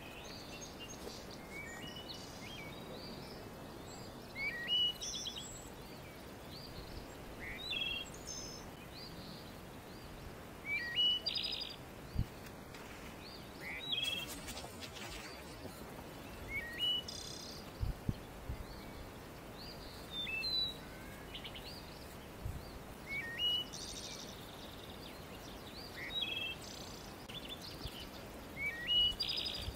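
A songbird singing short chirping phrases about every three seconds over a steady outdoor background hiss, with a few faint low thumps.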